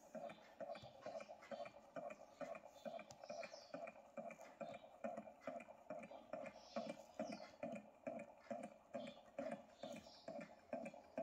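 Small low-temperature-differential Stirling engine running on a cup of hot liquid, its piston and linkage making a faint, even clicking of about three beats a second as the flywheel turns.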